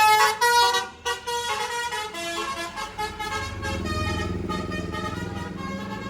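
A tour bus's multi-tone 'telolet' basuri air horn playing a melody of stepped notes that ends about a second in, followed by a few short horn tones. From about three seconds in, the bus engine runs as it passes.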